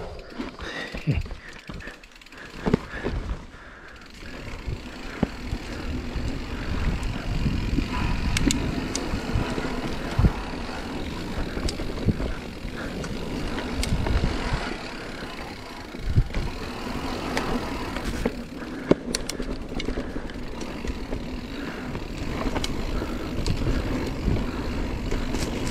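Marin Mount Vision 8 mountain bike riding down a dirt trail: a steady low rumble of the tyres rolling over dirt and roots, with scattered sharp clicks and knocks from the bike over bumps.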